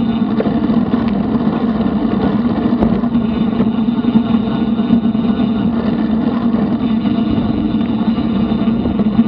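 Steady rushing wind and tyre noise of a bicycle riding along a paved trail, heard through a bike-mounted action camera's microphone, with a constant low hum under it.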